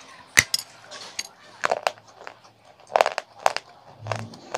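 Baked clay being bitten and chewed: a sharp, loud crunch about half a second in, then a string of further crisp crunches as it is broken up in the mouth.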